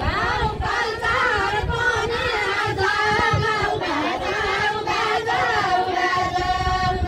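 A group of women singing a Deuda folk song together, with long held notes that bend in pitch.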